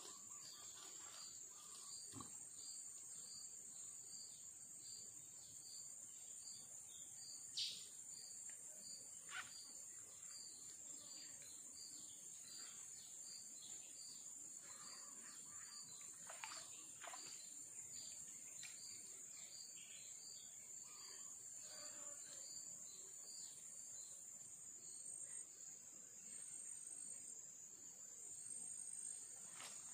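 Jungle insects keep up a steady high-pitched drone. A short chirp repeats about twice a second and stops a few seconds before the end. A few faint clicks come and go, the loudest about eight seconds in.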